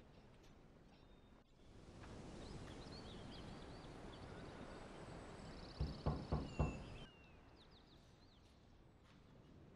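Four knocks on a wooden door, about six seconds in, over an evening outdoor ambience with birds chirping.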